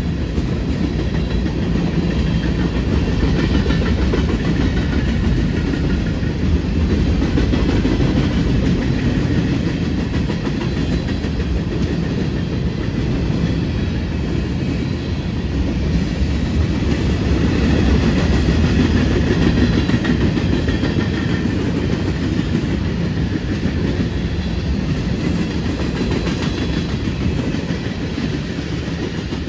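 A train's cars rolling past, a steady rumble of wheels on the rails with clickety-clack from the rail joints.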